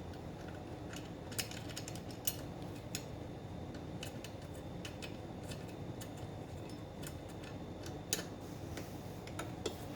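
Scattered light metallic clicks and taps from hand tools and a metal bracket being handled while it is fitted, a few seconds apart, over a low steady hum.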